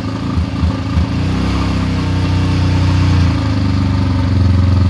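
A 2000 Honda XR650R's single-cylinder four-stroke engine running just after being kick-started. It fires a little unevenly for about the first second, then settles into a steady idle.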